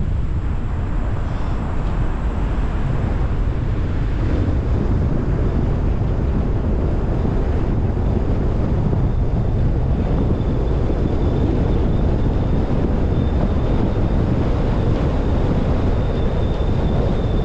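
Wind buffeting the microphone of a GoPro Hero10 mounted on the roof of a moving car, mixed with road noise: a steady, loud rush, heaviest in the low rumble.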